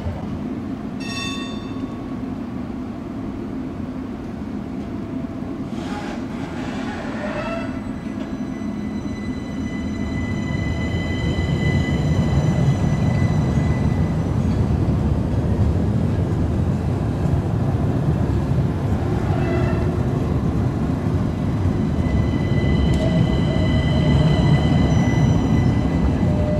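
Stadler Citylink tram-train running on tram tracks: a low rumble of wheels and running gear, growing louder about ten seconds in, with steady high-pitched whines from its electric drive that come and go. A brief tone sounds about a second in.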